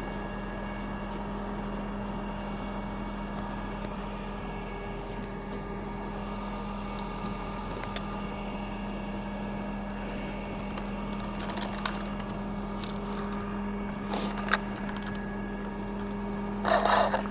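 Crane engine running steadily, a constant hum with a few faint clicks over it.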